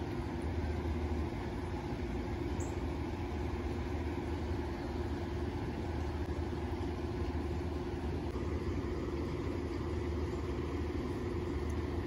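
A steady low machine hum that does not change, like an engine idling.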